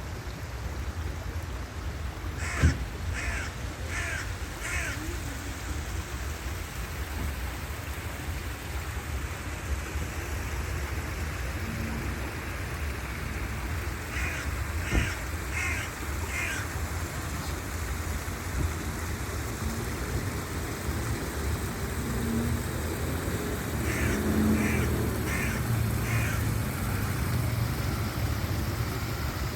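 A crow cawing in runs of four, three times, over the steady rush of a garden waterfall.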